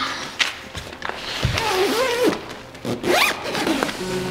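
Tent door zipper being pulled along its curved track in several strokes, zipping the nylon door shut.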